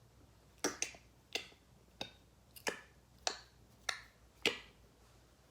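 A person imitating pistol shots with the mouth: a string of sharp clicking pops, about one every two-thirds of a second.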